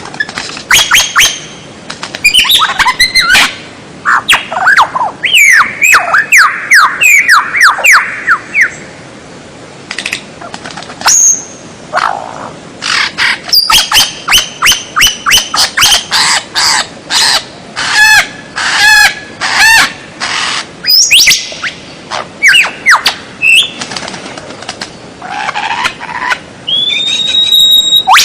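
White-rumped shama (murai batu) singing a loud, varied song: rapid runs of sweeping whistles and quick chattering notes in phrases, broken by short pauses, with a held rising whistle near the end.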